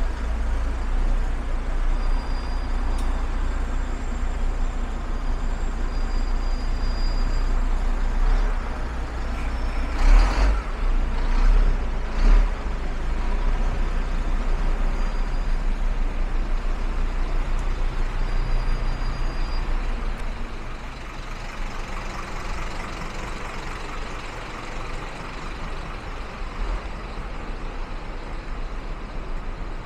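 Road traffic on a wet city street: a steady low engine rumble over a hiss of tyres and rain, with three short loud sounds about ten to twelve seconds in. The traffic grows quieter about two-thirds of the way through.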